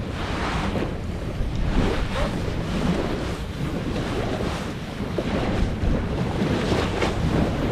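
Wind rumbling on the microphone over a burning campfire, with faint occasional crackles from the fire.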